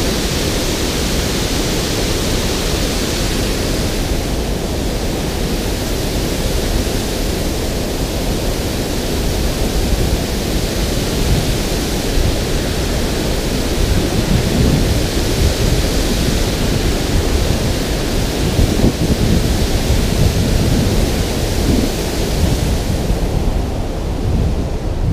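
Water pouring over a concrete spillway and churning below: a loud, steady rush of noise.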